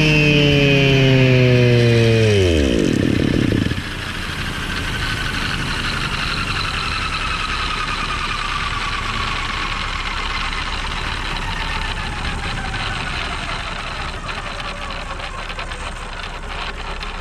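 Model tandem-rotor helicopter spinning down after landing: its drive whine falls in pitch, sinks steeply and cuts out about three seconds in. The rotors then coast on with a quieter hiss and a faint whine that keeps sliding lower.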